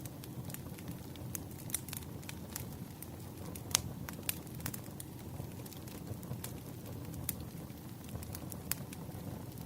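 Wood fire burning: a steady low rumble of flames with frequent sharp crackles and pops of the burning logs, one louder pop a little under four seconds in.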